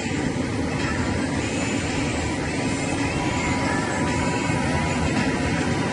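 A steady engine roar with a faint high whine wavering above it.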